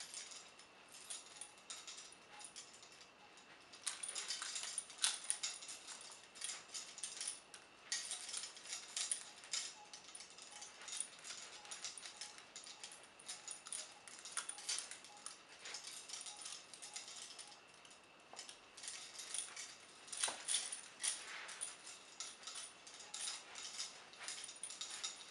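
Heavy steel prisoner shackle chain and handcuffs clinking and jangling in irregular bursts as the wearer shifts and turns.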